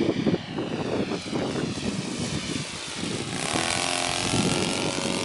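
Saito FG-57 four-stroke petrol engine of a large RF-4 scale model motor glider, running in flight. Its engine note comes in strongly about three seconds in, drops in pitch, then holds steady.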